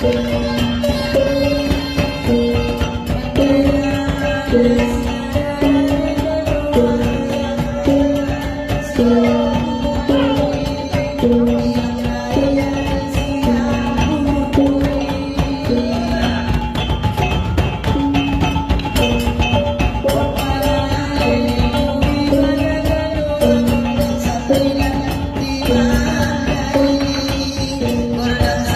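A Mandailing gordang sambilan ensemble playing: fast, dense beating on the tall drums with sticks, over two large hanging gongs struck in turn in a steady repeating pattern.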